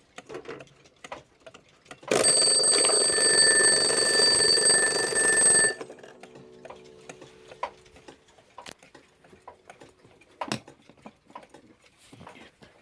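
Key-wound mechanical alarm clock's bell ringing loudly for about three and a half seconds, starting about two seconds in and cutting off sharply, followed by light handling clicks.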